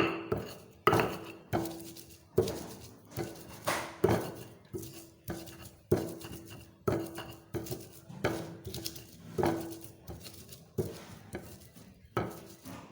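Pestle pounding chopped sugi-sugi leaves in a mortar to crush them, as a steady run of sharp knocks about one and a half a second. Each knock has a short ringing tone after it.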